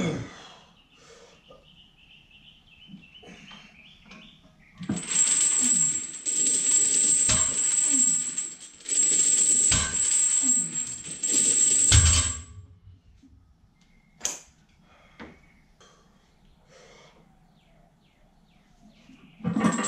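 Metal gym equipment rattling and clinking: a sharp knock at the start, then loud jangling in three stretches from about five seconds in, lasting some seven seconds, and one more clank a little later.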